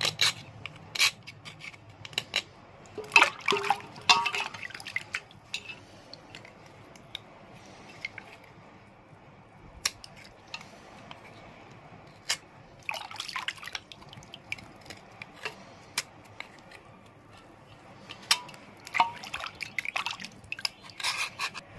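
Knife blade scraping the thin surface layer off a wet grey stone block, in short scratchy strokes with sharp clicks, over a bowl of water with small drips and splashes between strokes. The scraping comes in bunches, busiest a few seconds in, around the middle, and near the end.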